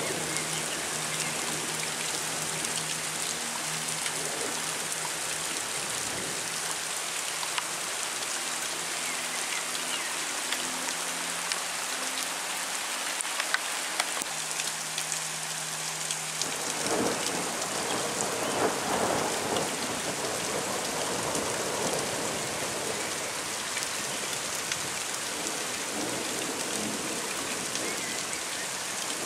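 Heavy rain falling steadily, with scattered sharp drop impacts close by. A roll of thunder swells from about seventeen seconds in and fades a few seconds later.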